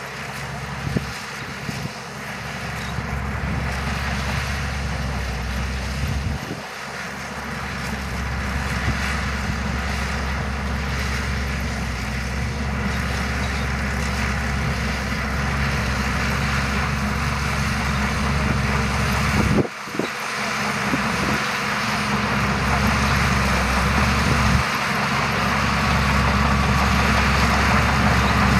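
Shantui DH17C2 bulldozer's diesel engine running steadily while the dozer pushes sand, slowly getting louder, with a brief sudden break a little past two-thirds through.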